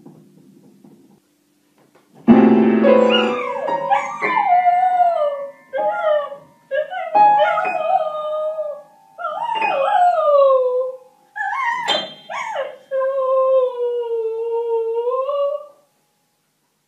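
A dog pawing an upright piano's keys, striking a loud jumble of notes about two seconds in, then howling along in long wavering howls that rise and fall. It hits a few more piano notes between howls, and the howling stops just before the end.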